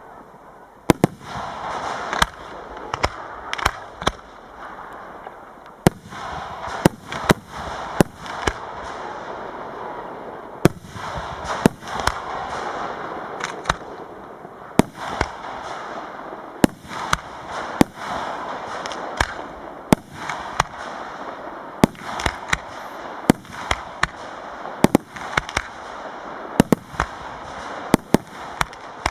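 Professional fireworks display: many sharp bangs from bursting shells, coming irregularly, several a second at times, over a steady rushing hiss.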